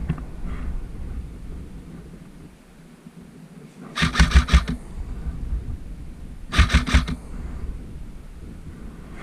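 Two short bursts of rapid airsoft gunfire, each a quick run of sharp snaps lasting about half a second, about four seconds in and again near seven seconds, over wind rumbling on the microphone.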